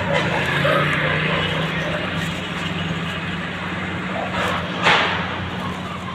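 Urban street traffic, with a motor vehicle's engine running steadily with a low hum. A single sharp knock comes about five seconds in.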